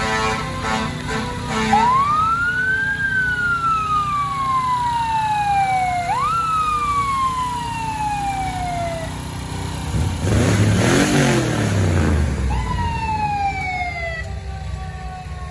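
Emergency-vehicle siren wailing in long sweeps, each climbing quickly and sliding slowly down. About ten seconds in, a vehicle passes close with a rush of engine and tyre noise on the wet road, and the siren sweeps twice more near the end.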